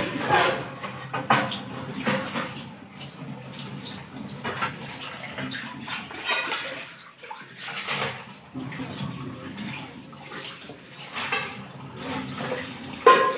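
Tap water running and splashing while pots and dishes are washed at a kitchen sink, with irregular clinks and knocks of metal utensils.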